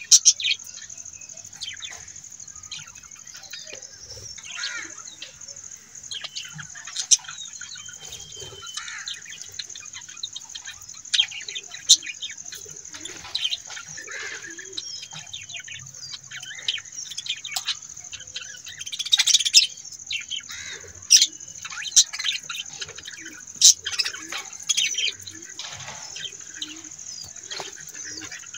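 Birds chirping: many short, sharp calls scattered throughout, a few louder ones in the second half, over a steady high-pitched hiss.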